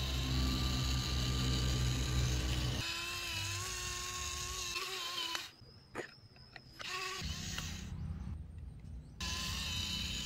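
Small electric motor and gearbox of a homemade toy tractor whirring steadily as it pulls a cultivator through sand. The whir changes pitch about three seconds in and stops about five seconds in. A few clicks follow while the tractor is handled, and the whirring starts again about seven seconds in.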